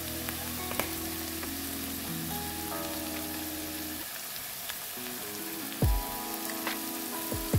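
Onion, garlic, ginger and tomato frying in a pan with a steady sizzle, under background music with held notes. Two dull thumps near the end.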